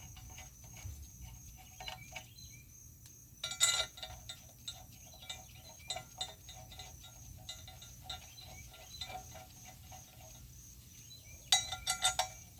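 Metal parts being handled, clinking and tapping together with a short ringing, with a louder cluster of clinks about four seconds in and another near the end.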